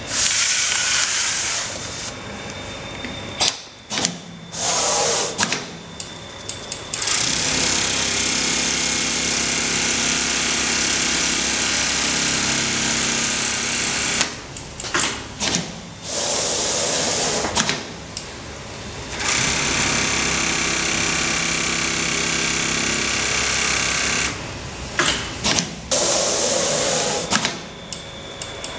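Automatic template sewing machine stitching at a steady fast rate in long runs, broken three times by a few seconds of stopping with sharp clicks.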